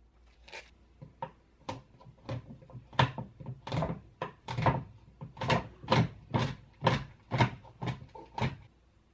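Knife chopping a bar of dark chocolate on a wooden cutting board: a steady run of knocks of the blade on the board, about two a second, growing louder after the first few strokes.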